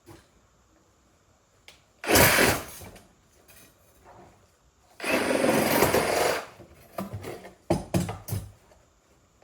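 Handheld power tool run in bursts: one short run about two seconds in, a longer run of about a second and a half near the middle, then several quick trigger blips near the end.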